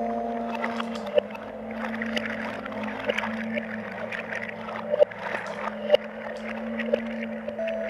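Ambient improvised electronic music played live on a Roland SP-404 sampler: sustained drone notes held under a hissy noise texture, with a few sharp clicks scattered through.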